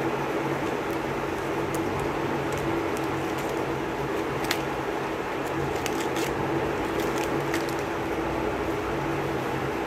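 Cellophane wrappers of lollipops rustling in the hands, with a few short, sharp crinkles about halfway through and again a little later. Under it runs a steady hum.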